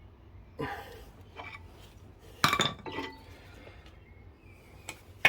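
Metal clinks and knocks on a front brake caliper as its stubborn piston is forced back to make room for new pads: about half a dozen separate strikes, the loudest about halfway through.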